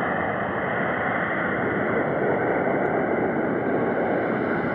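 Steady radio hiss from an air traffic control tower frequency between transmissions, even and unchanging, with no voices.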